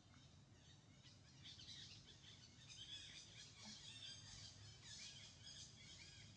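Faint birds chirping and twittering over quiet outdoor background, the calls thickening about a second and a half in.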